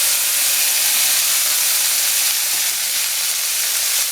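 Halved yabbies sizzling, shell side down, in a pan of hot oil: a loud, steady, hissing sizzle.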